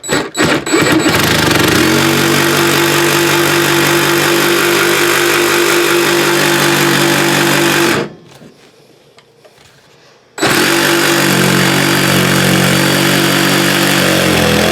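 Power saw cutting through a wooden floor, running at a steady pitch. It stops about eight seconds in and starts cutting again a couple of seconds later.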